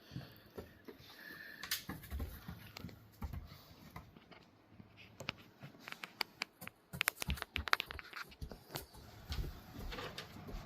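A puppy's paws and claws tapping and scuffing on a boat as she moves about: a scatter of light clicks, thickest about seven to eight seconds in.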